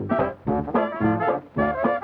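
Instrumental background music in short, rhythmic phrases of punchy notes, led by a brass sound.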